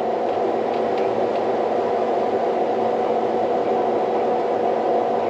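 John Deere S780 combine running steadily while cutting wheat, heard from inside the cab as an even whir with a constant hum.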